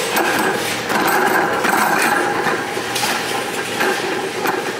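A steady clatter of many small knocks and clicks over a loud, noisy rattle.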